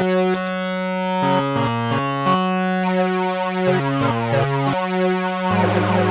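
Synthesizer notes played through an EarthQuaker Devices Pyramids flanger pedal. The notes are sustained and step between pitches, with a sweeping flange moving through them. The sweep rate has just been set with the pedal's tap tempo.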